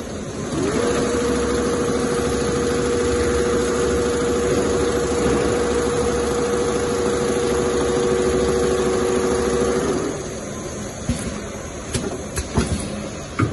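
Two-head Richpeace CNC pattern sewing machine stitching a quilted diamond pattern into leather: its motors hum, gliding up in pitch about half a second in and then holding a steady tone until about ten seconds in, when the hum drops away and a few sharp clicks follow.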